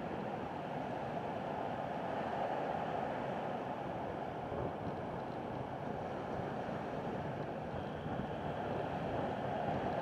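Sea surf breaking and washing over black lava rocks: a continuous rush of waves that swells a little two to three seconds in and again near the end.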